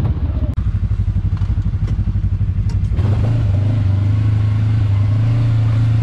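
Segway Fugleman UTV's twin-cylinder engine running while the machine is driven through rough woods. For the first few seconds it pulses rapidly and evenly, then it settles into a steady drone.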